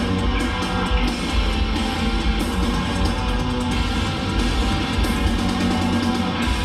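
Live rock band playing an instrumental passage: distorted electric guitars over drums, with frequent cymbal hits.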